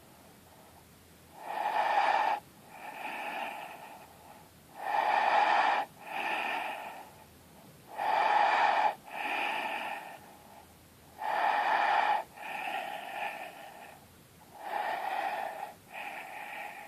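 A person breathing very deeply with the throat held wide open, so every breath is voiced through the throat. There are five breaths, about one every three and a half seconds, each a loud draw of about a second followed at once by a softer one.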